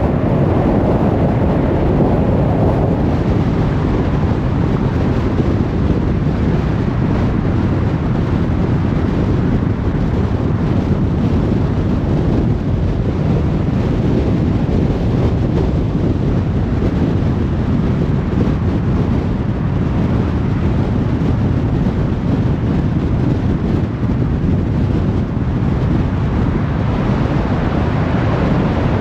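Steady motorway traffic noise: a dense, even rush of tyres and engines with no single vehicle standing out.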